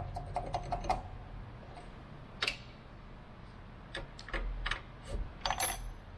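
One-handed bar clamps being set and ratcheted tight on a wooden block on a drill press table: a quick run of clicks in the first second, then scattered single clicks and knocks of clamp and wood.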